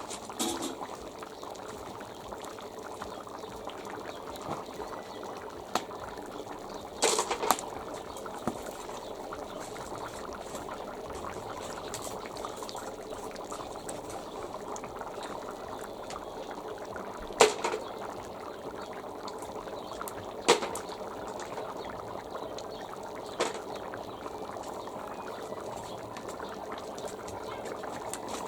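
Beef and vegetable stew bubbling steadily in a kazan over a wood fire, with four sharp clicks spread through the sound.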